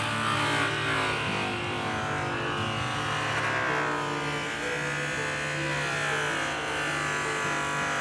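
Electric angle grinder spinning a cloth buffing wheel against an aluminum truck wheel in the primary-cut polishing stage: a steady motor whine whose pitch sags and recovers around the middle as the load changes. Background music plays underneath.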